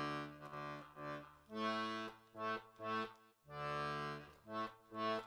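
Accordion playing chords: a held chord, then a string of short detached chords, another held chord about three and a half seconds in, and more short chords near the end.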